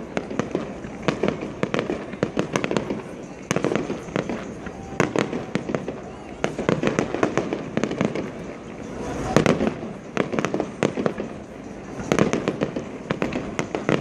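Fireworks display: a continuous run of shell bursts and crackling, with a dense, loud volley about nine to ten seconds in.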